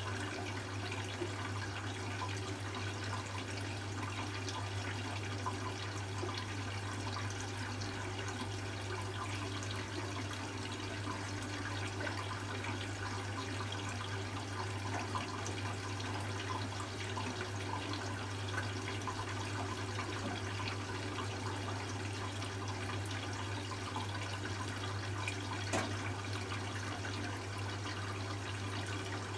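Hoover Classica 1100 AC164 washing machine taking in water for its second rinse: a steady rush of water running into the machine over a constant low hum.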